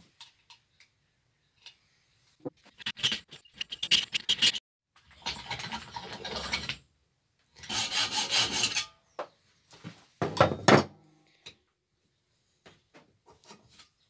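Hacksaw cutting into the metal no-turn washer clamped in a bench vise. The blade rasps in several runs of strokes lasting a second or two each, with short breaks between.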